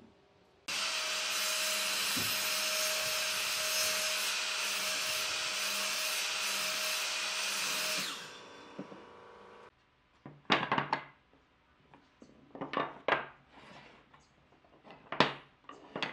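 Electric miter saw running and cutting into a pine strip for about seven seconds, a steady whine under the cutting noise, then winding down. After that come several short wooden clacks as pine pieces are set down and knocked together on a wooden bench.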